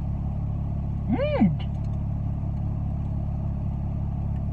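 Steady low rumble of a car, heard from inside the cabin. About a second in, a short voice sound rises and falls in pitch.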